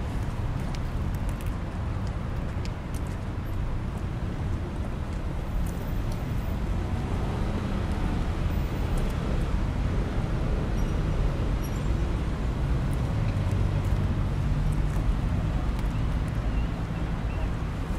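Steady city road traffic: the continuous rumble of cars driving along a wide avenue, growing somewhat louder about halfway through as a heavier engine passes.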